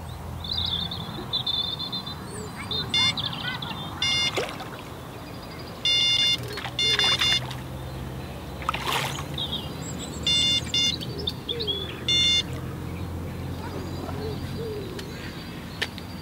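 Electronic carp/tench bite alarm on the rod rest sounding in about six short bursts of beeps, as the hooked tench pulls line. Birds chirp in between, and there is a splash at the surface about nine seconds in.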